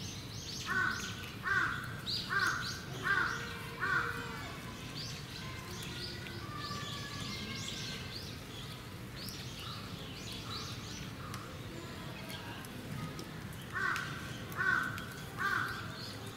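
A crow cawing, a run of five evenly spaced caws, then three more near the end, with small birds chirping faintly and high-pitched in the background.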